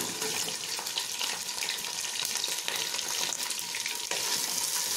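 Sliced ivy gourd (coccinia) sizzling in hot oil with garlic and curry leaves over high heat: a steady hiss with many small crackles as a wooden spatula stirs it.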